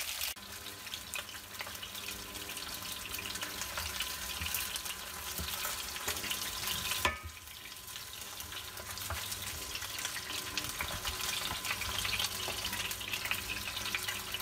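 Pieces of Asian sea bass (barramundi) sizzling and crackling in hot oil as they pan-fry, while they are turned with chopsticks and a wooden spatula. A sharp click about seven seconds in, after which the sizzle dips briefly.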